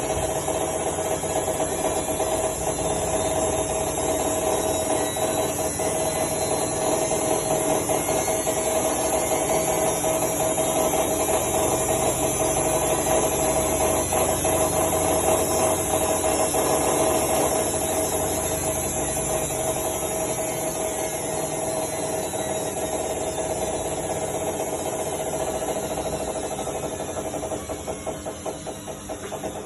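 Washing machine running with a loud rattling, knocking noise from inside it over a steady whine, the sign of a fault inside the machine. The racket swells about halfway through and eases off near the end.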